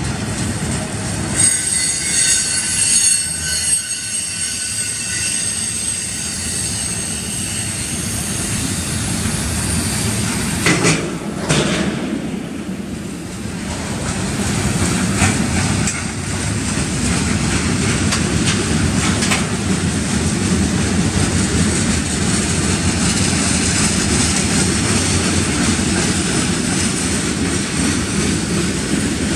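Freight cars of a passing train rolling by: a steady wheel-on-rail rumble with clacking over rail joints. High-pitched wheel squeal runs from about a second and a half in until about eight seconds, and a brief louder clatter comes near the middle.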